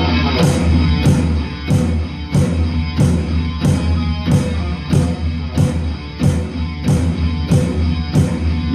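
Hard rock music with no vocals: a distorted electric guitar riff over heavy bass and drums, with a sharp hit about one and a half times a second.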